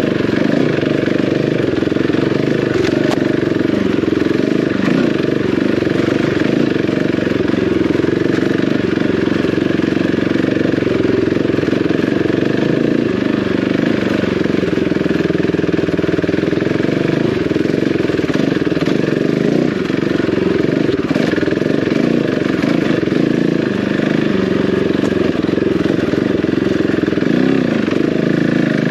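Single-cylinder enduro motorcycle engine running under steady load on a rough lane, its pitch wavering slightly with the throttle and changing more near the end.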